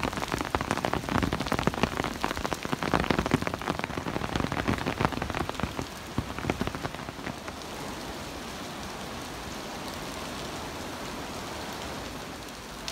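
Heavy rain falling on stone paving. For the first six seconds or so, many sharp drops strike close by over the downpour. After that the sound settles into a steady, even hiss of rain.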